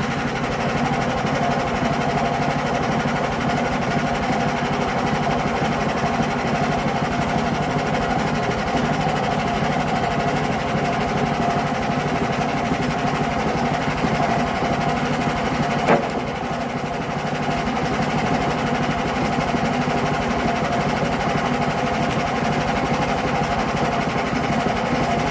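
Engine-driven sawmill running steadily, with one sharp click about two-thirds of the way through; it cuts off suddenly at the end.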